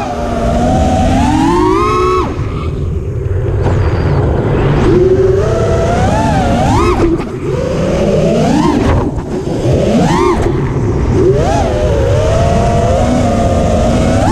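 Five-inch FPV quadcopter's four 2450kv brushless motors with three-blade props, whining in quick glides that rise and fall in pitch as the throttle is worked through turns. Wind rumble is on the onboard camera's microphone, and the whine drops back briefly about two seconds in.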